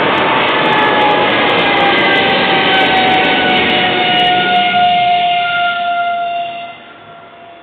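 Lufthansa Cargo Boeing 777 freighter's twin GE90 turbofans at takeoff thrust as it climbs away: a loud jet rumble with whining tones that slide slowly down in pitch as the aircraft recedes. It drops off sharply near the end.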